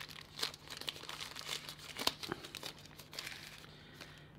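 Thin CPE plastic bag crinkling and crackling as a cable is pulled out of it, the crackles dying away near the end.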